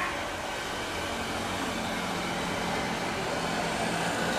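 Jet engines of an Airbus A320-family airliner at climb power just after takeoff: a steady rushing noise that grows slowly louder.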